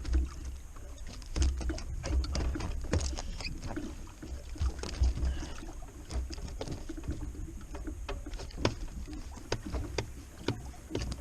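Handling noise aboard a small fishing boat: irregular clicks and knocks on the hull and gear over a low, uneven rumble of water and wind, while a hooked fish is being brought up.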